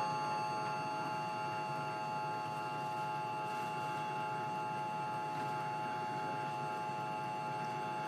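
Emergency Alert System attention signal: two steady tones sounding together as one harsh, unwavering alarm tone, held for about eight seconds before cutting off.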